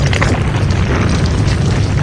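A loud, steady low rumble with a rough, crackly edge to it.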